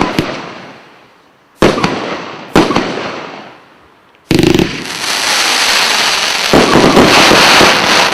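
'Dragon King' firework going off: three single sharp bangs, each with an echoing tail, over the first few seconds. Then, about four seconds in, a dense continuous barrage of overlapping bursts.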